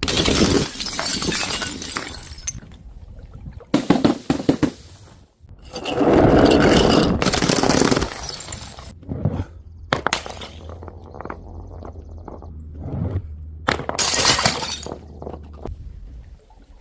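Glass bottles shattering one after another, about five separate crashes, each followed by shards clinking and scattering.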